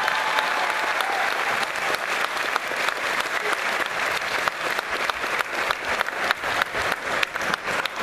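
Spectators applauding after a badminton rally; the applause thins toward the end into separate, scattered claps.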